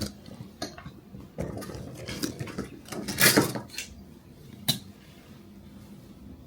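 Rustling and small clicks of hands working hairpins into gelled hair, with one sharper click late on.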